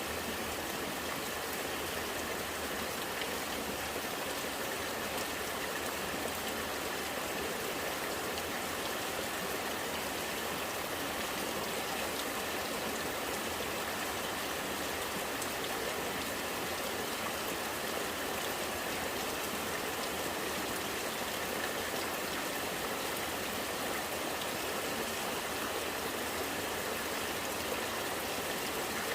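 Rainwater gurgling as it runs, with rain falling steadily; the sound stays even throughout.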